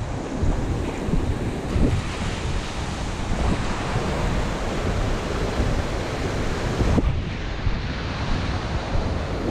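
Ocean surf breaking and washing up the sand, with wind buffeting the microphone. About seven seconds in the sound changes abruptly to a duller wash.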